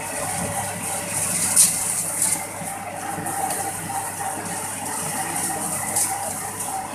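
A machine running steadily, with a continuous hiss and an irregular rattle over a steady hum.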